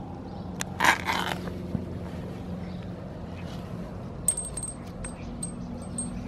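Small metal motorcycle guardian bell hanging under the frame, flicked by hand and ringing with a high, thin tinkle several times as it swings, starting about four seconds in. A short rustling scrape about a second in is the loudest sound.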